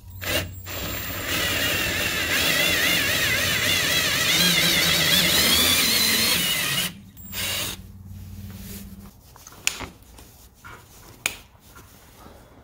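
Power drill running under load for about six and a half seconds, its pitch wavering as the bit bites, boring out a hole in a floor-mat clip. It then stops, followed by a few sharp clicks and knocks of handling.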